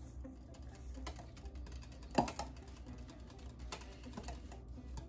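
Light clicking and scraping of kitchen utensils: a spoon against a metal mixing bowl as peanut butter crumble is spooned into a pie shell, and a wire whisk tapping inside a glass measuring jug of pudding. One louder clink about two seconds in.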